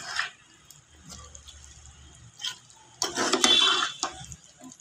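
Spoon stirring thick brinjal curry in a pan: a brief scrape at the start, then a louder burst of scraping and stirring about three seconds in that lasts about a second.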